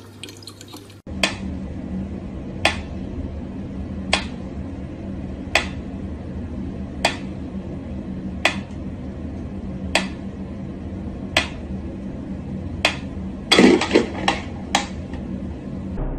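Mechanical pyramid metronome ticking slowly, one sharp tick about every one and a half seconds, over a steady low hum. Near the end comes a brief cluster of louder clicks and knocks.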